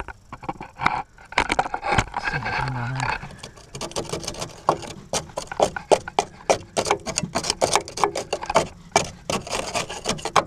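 Rusted steel chassis of a Land Rover Defender being picked at, rust flaking and crumbling off in a quick, irregular run of crackles and taps, thickest from about four seconds in. The chassis is rotted through.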